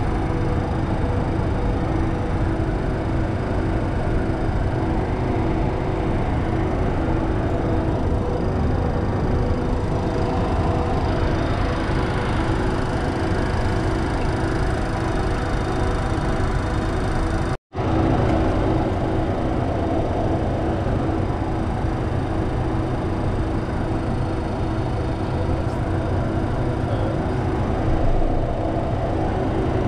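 Cessna Citation II's twin Pratt & Whitney JT15D turbofan engines running at taxi power, heard from inside the cockpit. A steady rush with a few steady hum tones under it, broken once by a brief cut a little past halfway.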